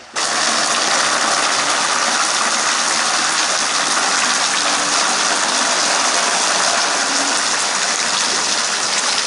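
Steady, loud rushing hiss of water spray and splashing close to the microphone, starting abruptly at the very beginning.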